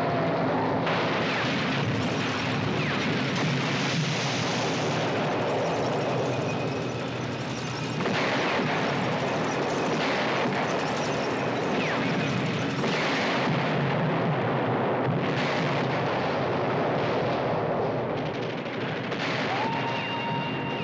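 Film battle sound effects: repeated explosions and gunshots, a dozen or so sharp blasts spread through, over a continuous din of battle noise with a low steady engine-like hum underneath. A steady high whistle-like tone sets in near the end.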